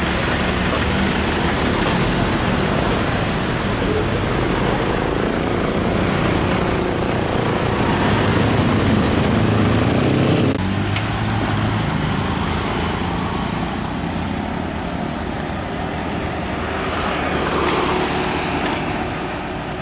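Road traffic: the engines and tyres of a slow-moving queue of cars and motorcycles, a steady mixed hum. About halfway through the sound changes abruptly to heavier traffic, with a diesel dump truck approaching near the end.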